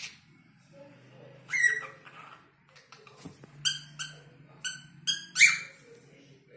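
Cockatiel calling in several short bursts of quick, chattering chirps, the loudest a little over five seconds in.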